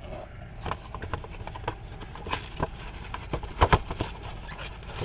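Scattered clicks and light knocks of a cabin air filter in its packaging being handled, with two sharper knocks a little past halfway. A steady low hum of the idling car runs underneath.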